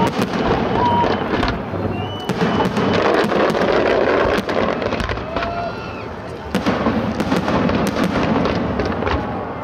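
Aerial fireworks display: shells bursting in a quick, irregular run of bangs over continuous crackling, with a few short whistles.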